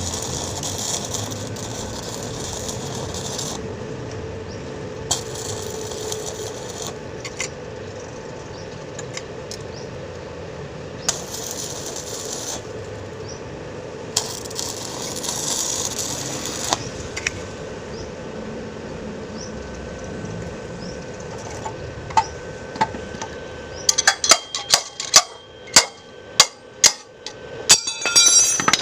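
Metal hand tools clinking and scraping on a scooter's CVT crankcase, with several bursts of hiss, then a fast run of sharp metal taps from about four seconds before the end, as the worn CVT bearing is worked out.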